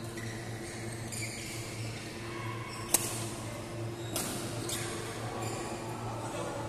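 Badminton rally: court shoes squeaking on the hall floor in short high chirps, and a sharp crack of a racket hitting the shuttlecock about three seconds in, followed by a few weaker hits, over a steady low hum.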